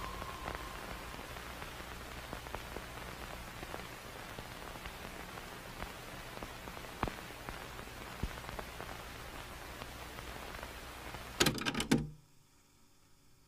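Steady hiss with scattered faint crackles and clicks. About eleven and a half seconds in comes a quick burst of loud clicks, then the sound cuts off suddenly to near silence.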